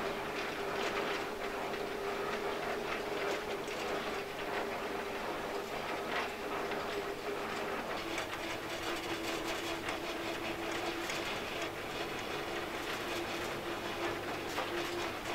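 Diesel shunting locomotive running along the line, heard from its cab: a steady engine drone over the rattle and clicking of the wheels on the track. The engine note drops slightly about halfway through.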